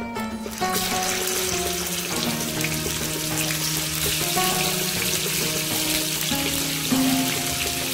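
Fish steaks sizzling as they fry in hot oil in a pan: a dense, steady crackling hiss that starts under a second in. Background music with plucked-string notes plays under it.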